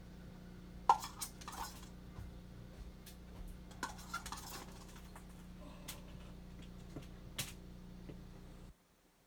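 A steady low electrical hum with light clinks and taps of small hard objects scattered through it, the loudest about a second in; the hum cuts off suddenly near the end.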